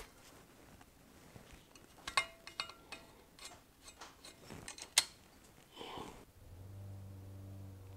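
Scattered small metal clicks and clinks of a screwdriver working in an electric motor's metal end bell, around its starting-switch mechanism, with one sharp click about five seconds in. A steady low hum starts about six and a half seconds in.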